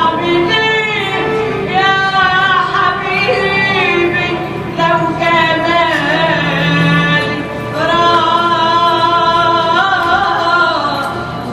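Egyptian cabaret belly-dance music playing loud and steady, carried by a singer's melody full of wavering, bending ornaments.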